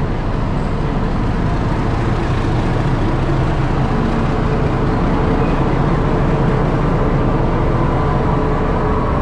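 Railway station platform din beside a standing train: a loud, steady mechanical drone with a faint constant hum, and no single event standing out.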